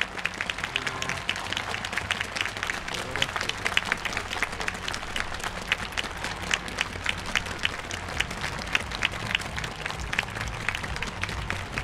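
Audience applauding: many hands clapping at once, a dense patter of individual claps.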